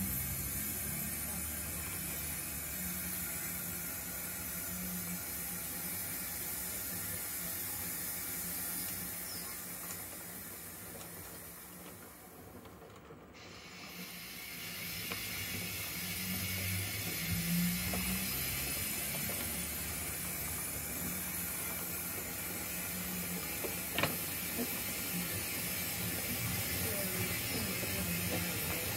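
O gauge model goods train moving slowly along the track: wagon wheels clicking and rattling over the rail joints with the running noise of the model's mechanism, dipping in loudness for a couple of seconds about halfway through.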